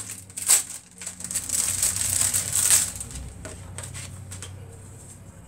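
Plastic-and-card retail packaging crinkling and tearing as it is pulled open by hand, in several rustling bursts over the first three seconds, then dying down to faint handling.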